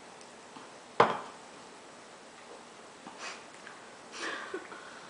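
A single sharp knock about a second in, then a few faint soft noises in an otherwise quiet small room.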